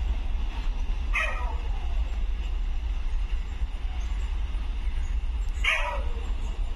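A dog barks twice, once about a second in and once near the end, each a short yelp falling in pitch. Under it is the steady low rumble of a goods train moving away.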